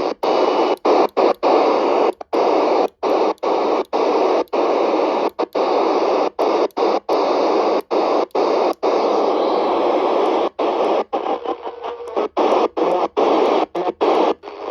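FM CB radio receiver hiss from a CRE 8900 (Alinco DX-10) tuned to a UK FM channel: a steady loud rush of noise chopped by many brief dropouts, about one or two a second.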